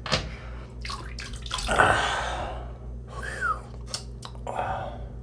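Water splashing and dripping in a sink as a shaving scuttle is handled, with several sharp clicks and knocks; the loudest splash comes about two seconds in.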